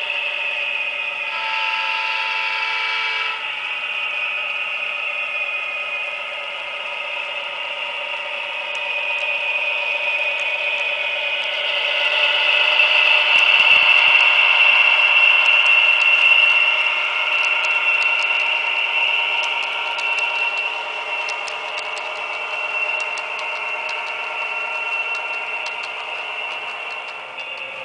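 Sound decoder in an Atlas HO-scale GP40-2W model locomotive playing a simulated EMD diesel engine through its tiny speaker: tinny, with no bass, and louder as the model passes close about twelve to seventeen seconds in. A short horn chord sounds about a second in, and light clicks run through the later part.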